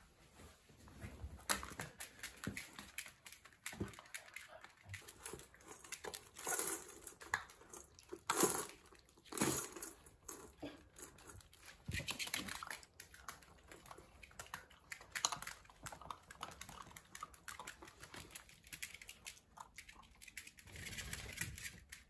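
Flat-coated retriever puppy eating dry kibble from a metal-lined bowl: irregular crunching and small clicks and rattles of kibble against the bowl, with no steady rhythm.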